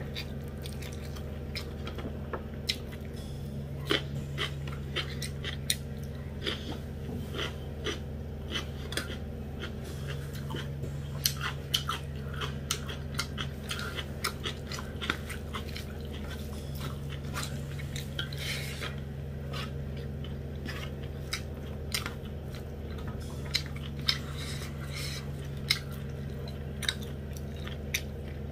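Close-miked chewing of mouthfuls of rice and dried buffalo-meat curry, with frequent sharp wet mouth clicks and smacks over a steady low hum.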